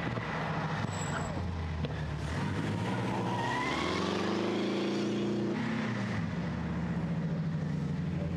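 Vintage racing special with a 23.9-litre three-bank water-cooled W12 engine running, its rear tyres spinning as it pulls away. The revs climb about three seconds in, hold briefly, then drop back.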